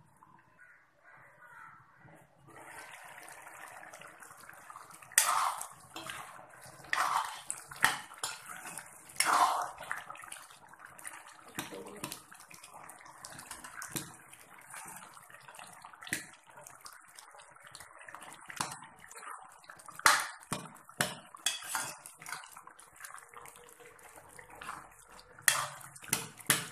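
A thick curry of colocasia and chicken simmering and bubbling in a kadai on the stove. A metal spoon scrapes and knocks against the pan as it is stirred. The first couple of seconds are nearly quiet.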